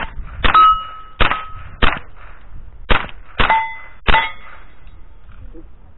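A quick string of about seven rifle shots from a Thompson Center rifle, spread over four seconds. Steel targets ring out after several of them as they are hit.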